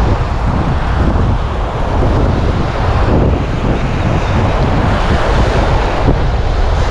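Wind buffeting the microphone, loud and steady, over surf washing on the beach.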